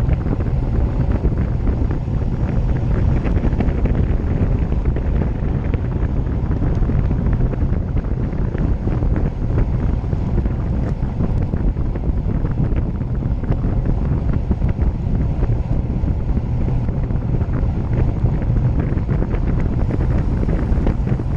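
Wind buffeting the microphone of a camera on a road bike descending at about 30 mph, a steady low rushing rumble mixed with tyre noise on the asphalt.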